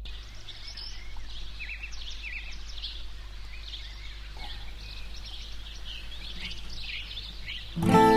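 Woodland birds chirping, many short calls overlapping, over a faint steady low rumble. Near the end, acoustic guitar music starts suddenly and becomes the loudest sound.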